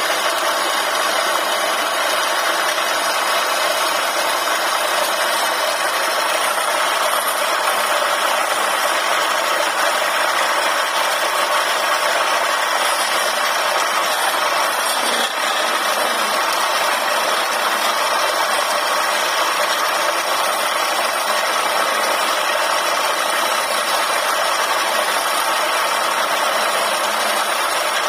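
Wood lathe running steadily with a wooden spindle turning on it.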